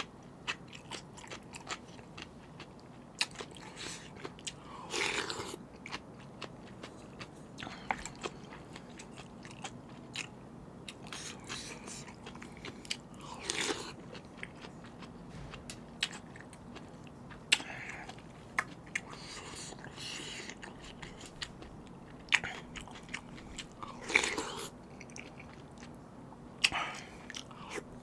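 Close-up eating sounds of a person eating spicy seafood noodles: steady chewing with many small wet clicks, broken by about six louder, noisier bursts of under a second each.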